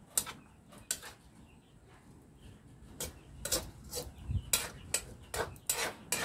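A metal cooking spoon scraping and knocking against a metal wok while stir-frying pechay greens: two single strokes near the start, then a quick run of scrapes and clinks from about halfway on.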